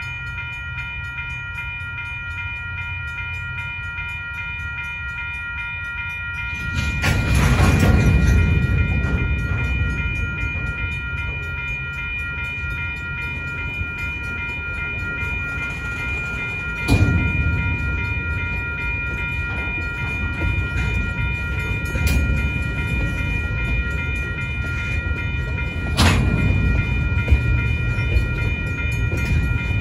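Covered hopper cars of a freight train rolling through a grade crossing, wheels and trucks rumbling, louder from about seven seconds in, with three sharp clanks in the second half. Over it the crossing's Western-Cullen-Hayes electronic bell rings steadily.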